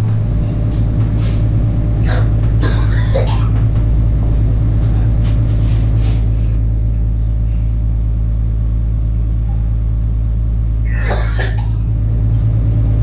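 A truck engine idling with a steady low hum, heard from inside a box truck's cargo box. A few short, faint noises break in, the loudest about eleven seconds in.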